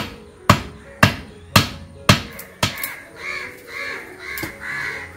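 Six sharp chops about half a second apart as a machete strikes plant stems, followed by a crow cawing several times.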